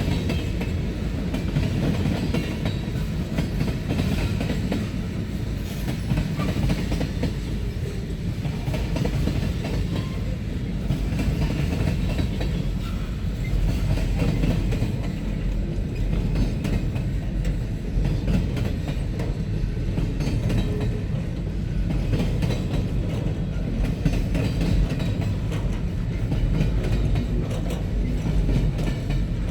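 Cars of a manifest freight train rolling past with a steady rumble and wheels clicking over the rail joints.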